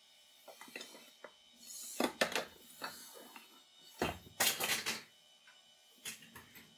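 Bittle robot dog's plastic legs and body knocking and clattering on hard tiles as its servos drive it, first as light clicks, then in heavy bursts about two seconds in and again from about four to five seconds in.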